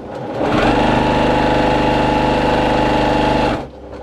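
Brother PQ1500SL high-speed straight-stitch sewing machine run flat out on fabric. Its motor and needle mechanism speed up over about half a second into a loud, steady high-speed whir, then stop sharply near the end.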